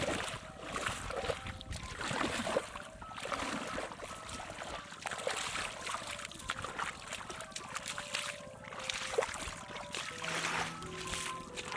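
Water splashing and trickling in uneven surges, as when someone wades and scoops in shallow water. Background music comes in near the end.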